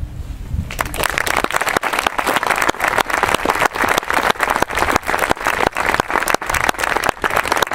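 Audience applauding. The clapping starts about a second in, just after the harp falls silent, and carries on thick and steady.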